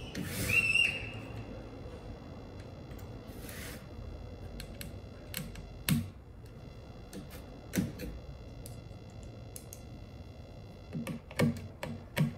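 Scattered light clicks and taps of hard plastic being handled: the Dyson V8 vacuum's motor housing being turned over and set down, and a small screwdriver being picked up. About half a second in there is a louder rustle with a brief high squeak.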